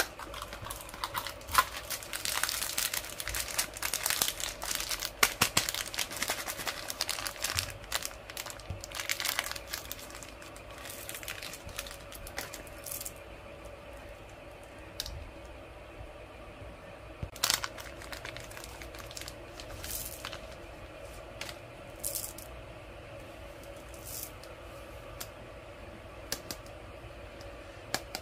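Plastic wrapper crinkling and tearing as the packed toy is pulled out of an opened Cadbury Gems surprise ball. The crackle is dense for the first ten seconds or so, then gives way to a few scattered clicks and taps.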